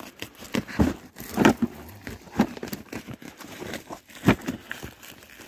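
Crinkling and rustling of a plastic-wrapped cardboard parcel being handled, with irregular sharp crackles and knocks, the loudest about a second and a half in and just past four seconds.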